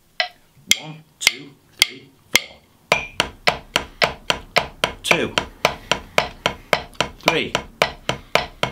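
Metronome clicking at 110 beats per minute. From about three seconds in, wooden drumsticks strike a drum practice pad in alternating single strokes, as eighth notes, two strokes to each click.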